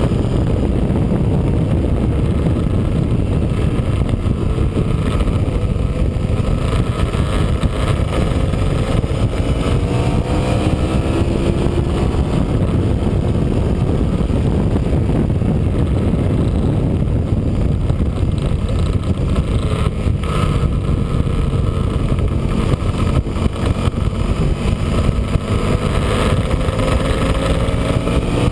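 Sport motorcycle's engine at track speed, heard from a camera behind the windscreen under heavy wind rumble. The engine pitch climbs as the bike accelerates, once about a third of the way in and again near the end.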